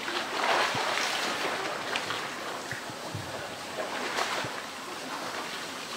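Water splashing and churning as a polar bear wrestles a blue plastic drum in its pool, with louder splashes about half a second in and again about four seconds in, and a few dull knocks.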